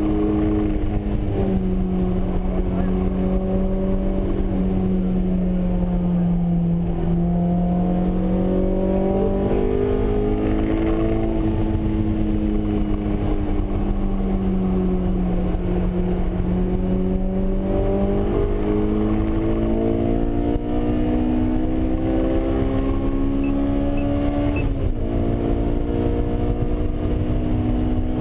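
Honda S2000 (AP1) 2.0-litre four-cylinder engine heard from inside the cabin while lapping a race track. The engine note rises and falls with throttle and speed through the corners, with a sharp drop in pitch at a gear change about a second in and again near the end, over steady road rumble.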